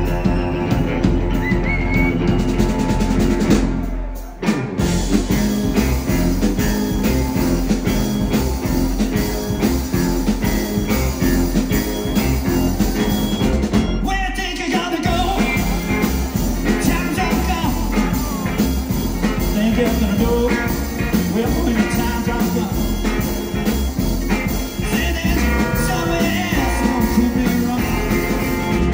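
Live band playing: electric guitar, drum kit and upright bass, with a male voice singing. The band stops briefly about four seconds in, then plays on.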